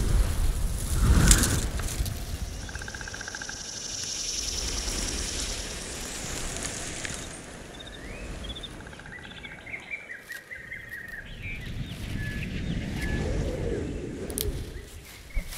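Dolby Atmos nature demo soundtrack played through a soundbar. A deep whooshing swell comes about a second in, then rustling, with bird chirps and twitters through the middle and later part, and a few sharp clicks near the end.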